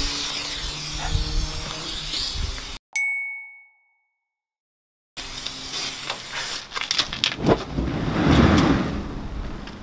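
Background music cut off by a sharp ringing ding, then silence, then a hiss of sprayed starting fluid and the whoosh of it igniting and burning around a truck tyre's rim. It burns without the bang needed to seat the tyre bead, which the owner puts down to the spray being old or too cold.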